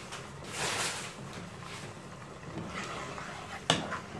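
A wooden spoon handled in a frying pan of tomato sauce: a soft swish about half a second in, then one sharp knock of the spoon against the pan near the end.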